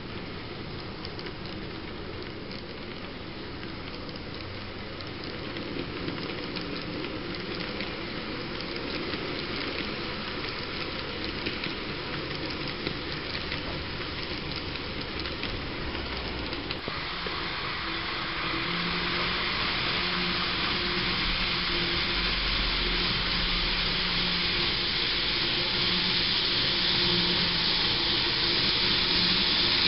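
N-gauge model train (EF65 electric locomotive model hauling 24 series sleeper coaches) running on track: a steady hissing rattle of small metal wheels on the rails. About halfway through it grows louder and brighter and a low hum joins in as the train runs onto a plastic viaduct with a truss bridge.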